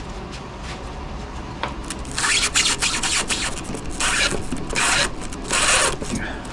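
Sharpened brass tube, about 18 mm across, twisted by hand as it bores through a styrofoam core, making a dry scraping. There are several strokes: a long one about two seconds in, then three shorter ones near the end.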